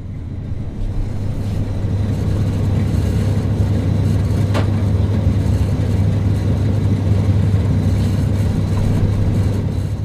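Steady low electric motor hum of a small shop's fan or appliance, with an even rush of air noise over it and a faint tick about four and a half seconds in.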